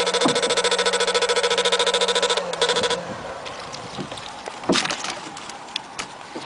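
Electric fish shocker buzzing, a rapid even pulsing drone that cuts off about three seconds in. After it, a few quieter knocks and water sounds as a fish is scooped with a hand net, one sharp knock a little before the end.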